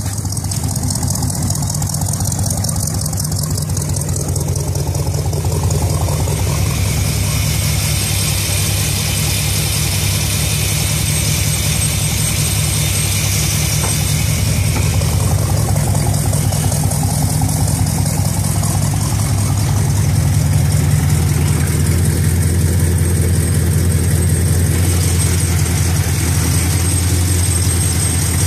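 Rebuilt Chevrolet 350 small-block V8 in a 1990 GMC truck idling steadily, heard close at its open engine bay.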